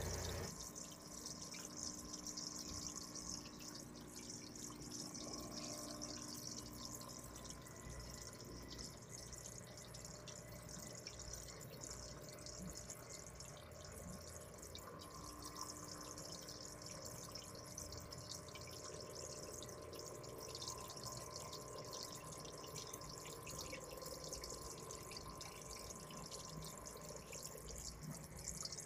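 Aquarium air stone bubbling steadily, a constant fizz of small bubbles popping at the water surface, with a faint steady hum underneath.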